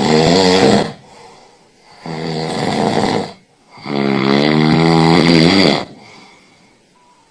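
A man snoring in his sleep: three loud snores with short gaps between them, the last dying away about six seconds in.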